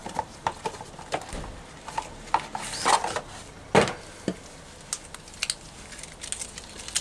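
Scattered clicks, knocks and rustling as a new rear shock absorber is lifted out of its cardboard box and handled, with one louder knock a little before four seconds in.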